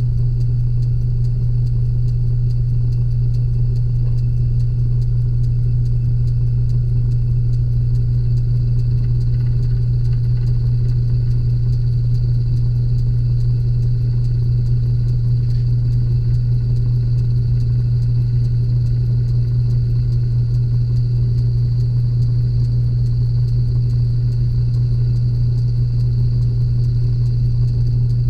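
Metal lathe running steadily with its spindle turning: an even low hum with a faint, steady high whine above it.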